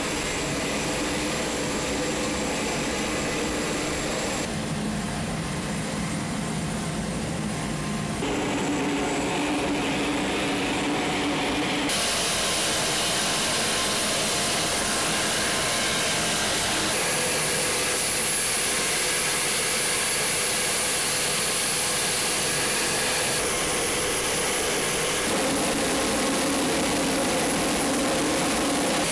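Steady aircraft engine noise on an airfield flight line, with a high whine over a constant rush. It changes tone abruptly several times.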